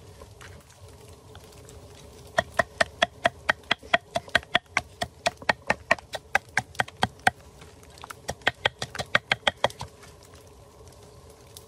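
Pestle pounding garlic and chillies in a wooden mortar: quick, even strikes about five a second, each with a hollow ringing knock, in a run of several seconds, a short pause, then a second, shorter run.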